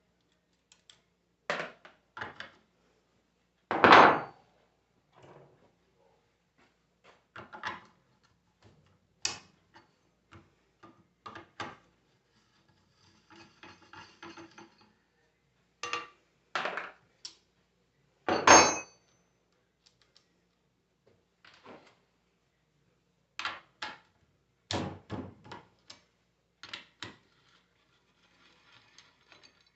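Metal tools and parts of a 24-volt truck alternator clinking and knocking as it is taken apart: scattered clanks with quiet gaps between them, two sharper knocks about four seconds in and again around eighteen seconds, and brief rattling in between.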